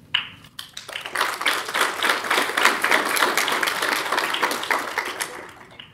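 Audience applauding. It builds about a second in and dies away near the end.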